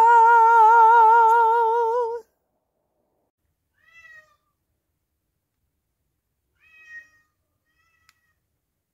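A voice holding one long, meow-like sung note with a quick steady wobble for about two seconds, then cutting off sharply. Later come two faint, short, high calls, one about four seconds in and one about seven seconds in.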